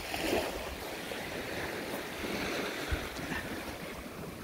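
Sea surf washing steadily on a pebble beach, with wind now and then rumbling on the microphone.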